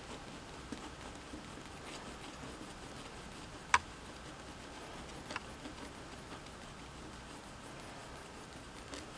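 Pencil sketching on paper, a faint scratchy sound of short strokes, with one sharp tap nearly four seconds in and a fainter one about a second and a half later.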